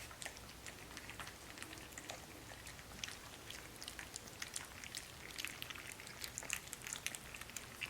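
Four-week-old Aussiedoodle puppies eating soft soaked puppy-food mash: a faint, irregular patter of wet licking and smacking.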